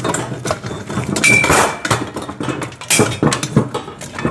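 Steel parts of a foldable welding table clanking and rattling as they are handled and turned around, with a short metallic ring about a second and a half in.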